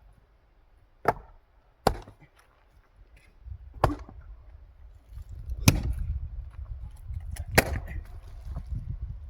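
Axe splitting firewood logs: five sharp strikes, the first two close together, then three more about two seconds apart, the last two loudest.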